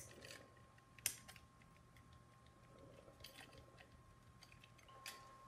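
Near silence broken by a few faint clicks and taps of plastic blaster parts being handled, the sharpest about a second in.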